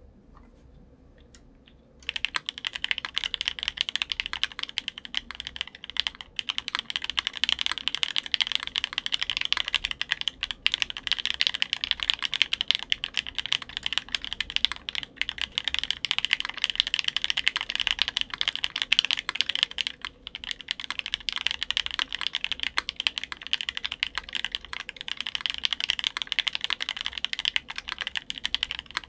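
Fast, continuous typing on a custom mechanical keyboard (Metakey TENET70) with lubed and filmed Alpaca v2 linear switches, a PC plate and GMK keycaps: a dense run of keystroke clacks that starts about two seconds in.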